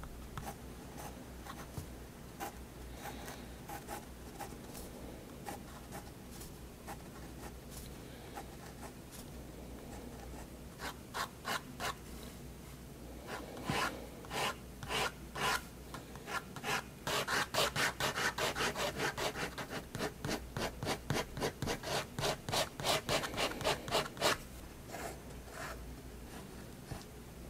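Staedtler 0.3 mm pigment liner scratching across sketchbook paper. Light, scattered short strokes come first. From about halfway there is a run of quick repeated strokes, about four a second, and these are the loudest part.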